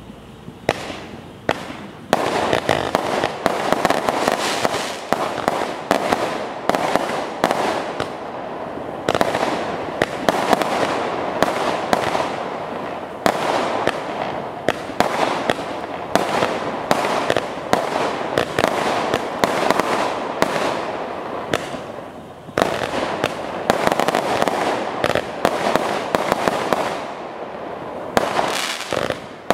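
A 98-shot consumer firework cake with 0.6- and 0.8-inch tubes, firing a rapid, continuous barrage of shots and bursting bangs, many per second. The barrage starts about a second in and has a brief lull near the end.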